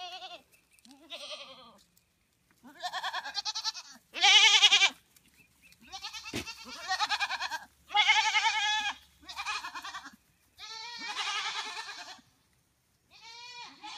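Boer goats bleating over and over, about nine quavering calls with short gaps between them, the loudest about four seconds in. A single sharp click sounds about six seconds in.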